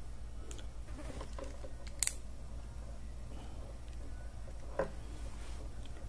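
Opened mechanical washing machine spin timer running on its spring after being switched on: faint clicks from its plastic gear train, the sharpest about two seconds in, over a low steady hum.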